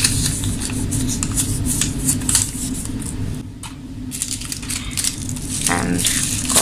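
Paper sachets crinkling and rustling as sugar and then instant coffee are tipped into a ceramic bowl, in short irregular crackles over a steady low hum.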